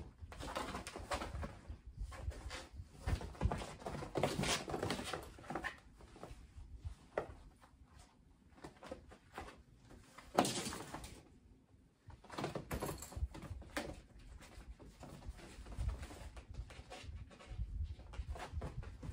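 Kittens wrestling and tumbling on the fabric floor of a pop-up pet playpen: irregular soft thumps, scratching and rustling of paws and bodies on the cloth, with a louder scuffle about ten seconds in.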